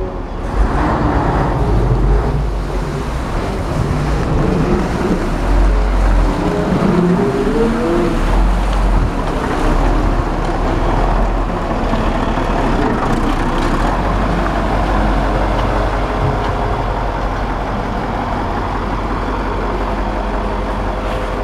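Niigata NR653 rotary snowplow's diesel engine running as the machine drives off, its pitch rising and falling a few times in the first half.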